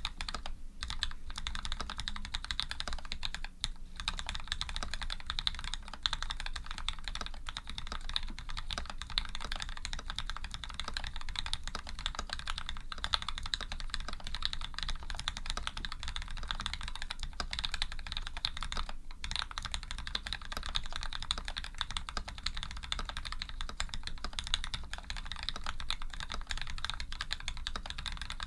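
Fast continuous typing on a custom Canoe v2 mechanical keyboard with lubed Gateron Ink switches, aluminium plate and PBT keycaps: a dense stream of key presses, with brief pauses about four seconds in and again near the nineteen-second mark.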